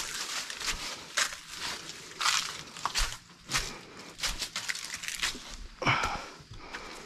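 Footsteps crunching and rustling through dry fallen leaves and loose stones in a dry rocky creek bed, uneven steps about one to two a second.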